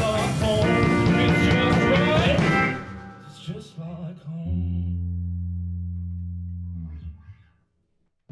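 Small rock band playing: a man singing over electric bass guitar and drums. About three seconds in the band stops, a few scattered sounds follow, then a single low note is held and fades away to silence near the end.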